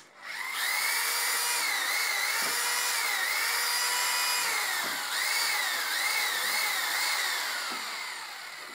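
Electric drill with a paddle mixer stirring sugar into wormwood extract in a plastic drum. The motor whine spins up at the start, rises and falls in pitch several times as the speed changes, and winds down near the end.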